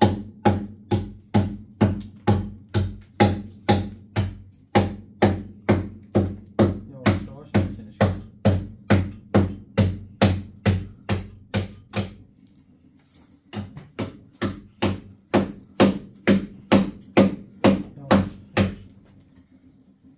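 Hand hammer striking into a plastered masonry wall in a steady rhythm of about two blows a second. The blows pause for a couple of seconds around the middle, resume, and stop shortly before the end.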